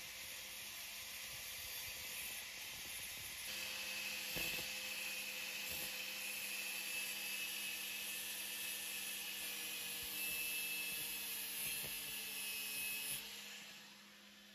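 A small high-speed rotary tool, a die grinder with a cutter, running with a steady whine and hiss as it grinds weld on the steel crankshaft tone ring. It stops near the end.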